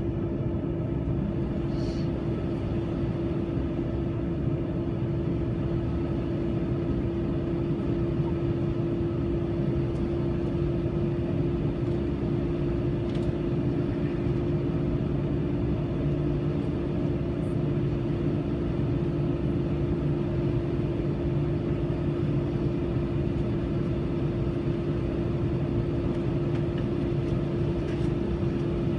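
Steady cabin hum inside an Airbus A321 parked on the ground, with one constant mid-pitched tone over a low rumble and no change in level, typical of the aircraft's air-conditioning and ground power running before pushback.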